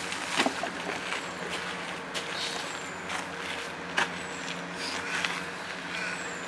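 Steady low engine-like hum in the background, with scattered clothing rustles and short handling knocks as a knitted cardigan is pulled on.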